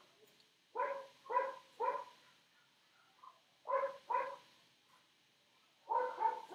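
A dog barking in short bursts, grouped in twos and threes: three barks about a second in, two near the middle, and a quick run of barks near the end.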